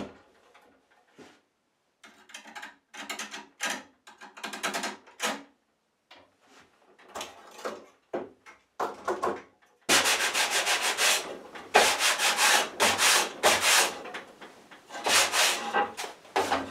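Sandpaper rubbed by hand over a wooden saw handle: short, scattered strokes at first, then quick back-and-forth strokes from about ten seconds in.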